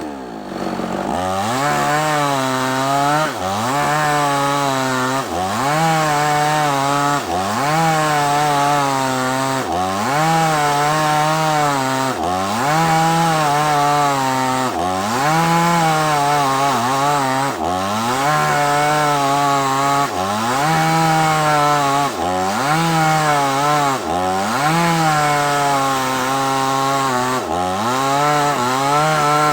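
Two-stroke chainsaw cutting through a large sengon log. The engine's pitch sags under load and climbs back about every two seconds, in a steady rhythm.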